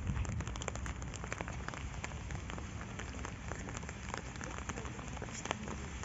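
Steady rain falling, with many individual drops ticking.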